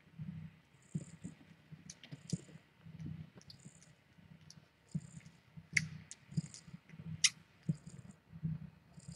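Domestic cat purring in a steady low pulsing rhythm, with a soft breathy rasp every second or so and a couple of sharp little clicks about two-thirds of the way through.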